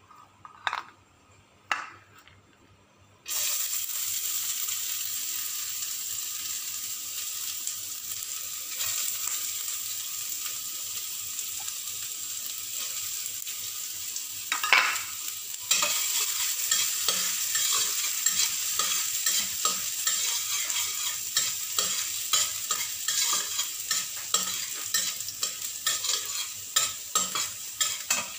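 Diced vegetables sizzling in hot oil in a stainless steel wok; the sizzle starts suddenly a few seconds in, after two knocks. From about halfway, a metal spatula scrapes and clicks against the wok as they are stir-fried.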